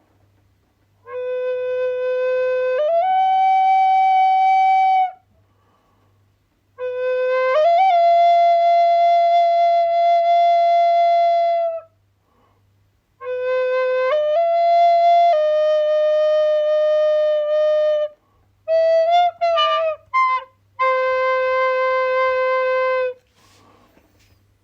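Solo flute playing slow, long held notes in phrases with short pauses between them, some notes stepping up in pitch partway through, and a few quick short notes near the end before a final held note.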